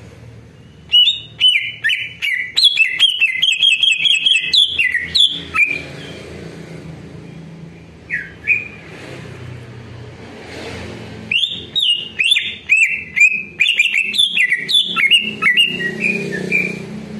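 Male greater green leafbird (cucak ijo) singing in two long runs of quick, varied chirps and whistles, the first starting about a second in and the second starting about two-thirds of the way through, with a low steady hum underneath.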